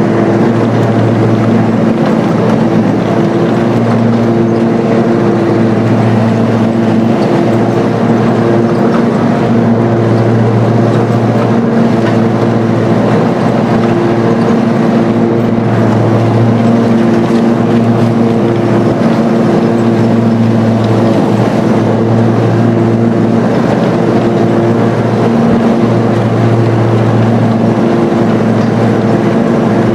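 John Deere riding lawn tractor's engine running steadily close by, a constant low hum that holds one pitch.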